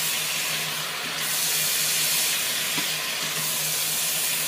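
Shrimp, minced pork and sator beans in shrimp paste sizzling steadily in a hot wok as they stir-fry, with a steady low hum underneath.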